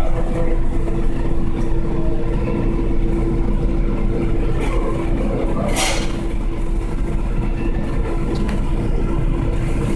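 Steady mechanical hum with a constant low tone, with a brief hiss about six seconds in.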